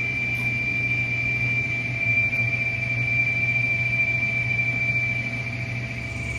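Whirlpool Cabrio top-load washer running with a steady high-pitched whistle over a low hum. The whistle comes from a split shift-actuator slider sleeve, which the repairer finds on teardown.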